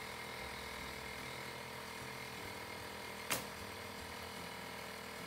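A pneumatic nail gun fires once, about three seconds in, driving a nail into OSB roof sheathing, over a steady hiss.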